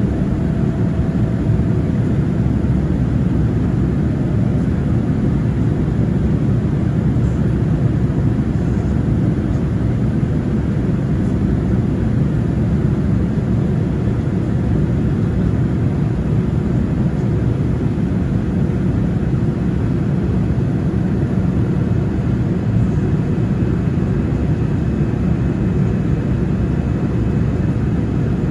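Steady low cabin rumble of a Boeing 787-9 in flight, its GE GEnx-1B engines running and air rushing past the fuselage, heard from a window seat beside the engine.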